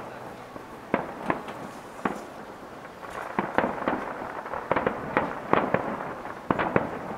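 Aerial firework shells bursting: an irregular series of a dozen or so sharp bangs, each with a short echoing tail, coming thicker and faster in the second half.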